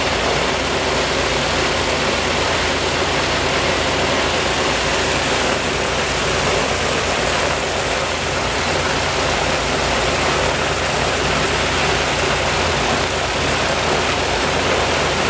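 The Il-14T's left engine, a Shvetsov ASh-82T fourteen-cylinder radial, running steadily and loud.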